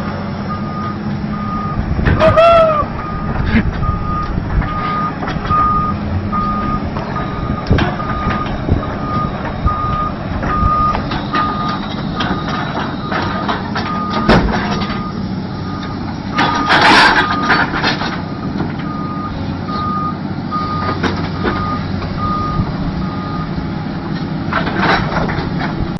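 Truck's reversing alarm beeping at a steady high pitch, a little over one beep a second, over a running engine; the beeping stops near the end. A brief squeal about two seconds in and a short burst of hiss about two-thirds of the way through.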